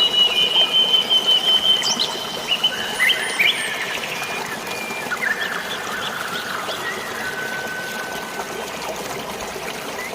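Flowing, trickling water with birds singing over it. A high pulsing whistle sounds for the first couple of seconds, then short chirps, then a single lower held whistle later on.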